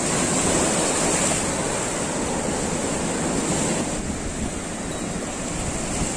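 Sea surf washing and breaking against shoreline rocks: a steady rush of waves and foam that swells briefly near the start and eases a little toward the end.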